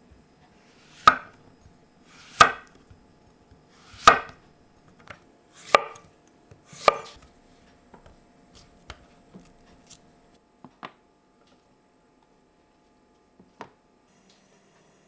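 A kitchen knife cuts through a courgette onto a wooden cutting board: five separate cuts, each ending in a sharp knock on the board, about one and a half seconds apart. After them come a few much lighter clicks and taps.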